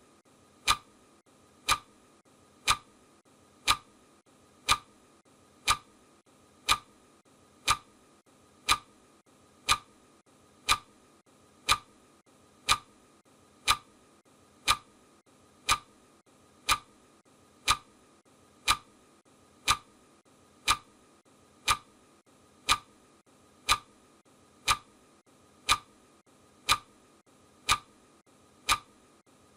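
Clock ticking, one short sharp tick every second at a perfectly steady pace.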